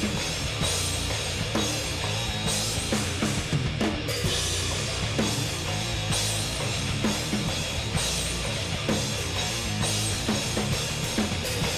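Heavy metal band playing live in an instrumental passage with no vocals: a steady, driving kick-and-snare drum beat over a dense wall of guitar and bass.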